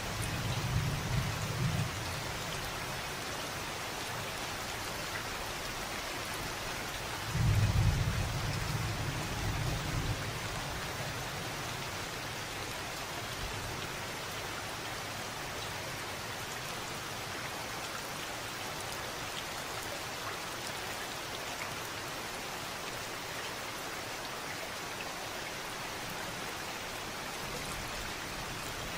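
Steady rain hiss with thunder. A low rumble fades out in the first couple of seconds, and a sudden louder rumble comes about seven seconds in and dies away over the next two or three seconds.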